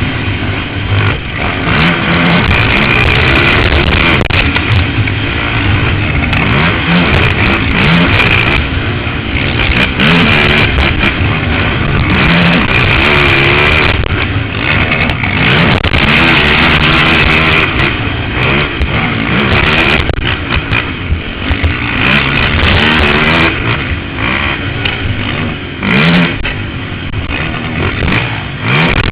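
Can-Am DS 450 sport ATV's single-cylinder four-stroke engine revving up and falling back over and over as it is ridden hard around a motocross track, heard from a helmet camera.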